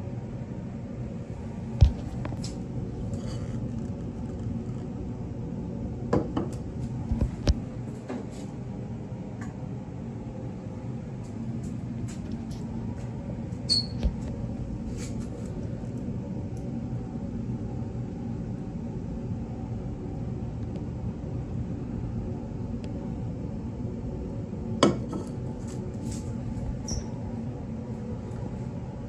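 Steady low hum of laboratory room tone with a few scattered sharp clicks and knocks, the sharpest about two seconds in, a cluster around six to seven seconds, and another near twenty-five seconds.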